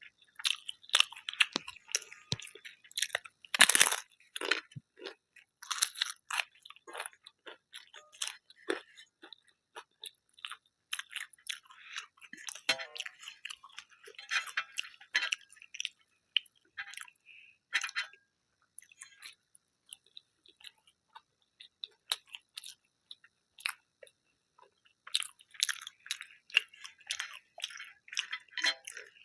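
Close-miked chewing of a meal, with many short crisp crunches, the loudest about four seconds in.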